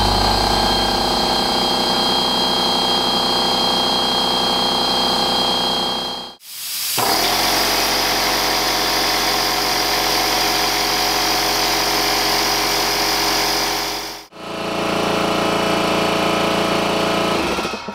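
Husky C303H 30-gallon oil-free electric air compressor running steadily, with a couple of faint steady high whines over the motor. After a sudden cut about six seconds in, a 6-gallon Porter-Cable pancake compressor runs, with more hiss. After a second cut near fourteen seconds, the Husky runs again as its tank charges toward 180 psi.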